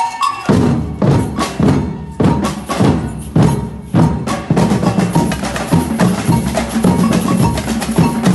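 Samba reggae drum ensemble playing. A few high knocking tones open, and the full drum section comes in about half a second in with a run of heavy strokes roughly every half second, then settles into a steady, dense groove from about four seconds.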